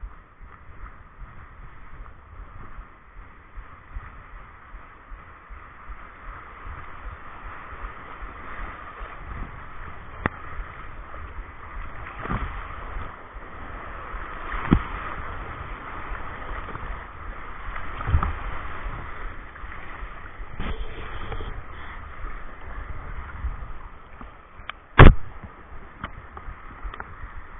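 Steady rush of a river's running water, with a few sharp knocks over it; the loudest knock comes about three-quarters of the way through.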